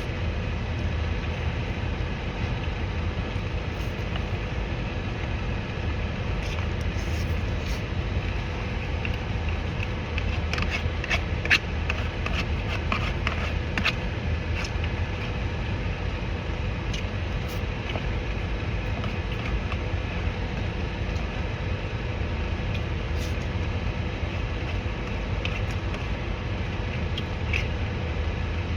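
Small clicks and crunches of someone eating, scattered and busiest in the middle, over a steady low rumble with a faint hum.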